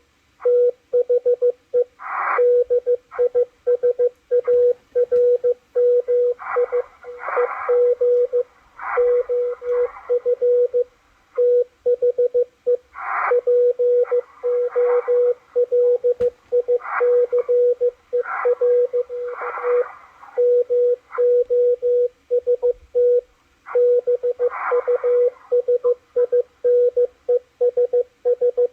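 Morse code (CW) from a shortwave receiver's speaker: a single beat tone keyed rapidly on and off in dots and dashes, with brief bursts of higher-pitched noise over it several times.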